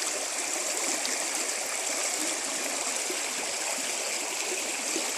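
Creek water running and bubbling steadily over rocks.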